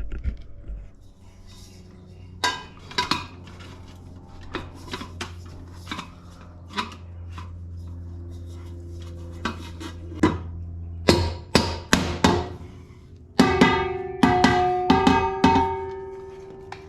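Metal hubcap being handled and knocked onto a car wheel: scattered sharp knocks and clanks that grow louder and closer together in the second half, the last ones leaving the metal ringing.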